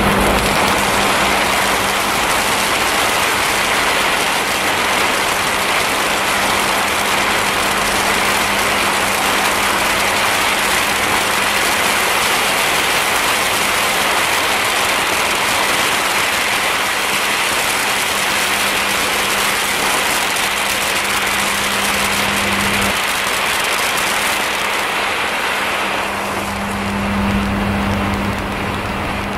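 Several pyrotechnic ground fountains burning at once, with a loud, steady spray hiss. The hiss thins out near the end as only one fountain is still burning.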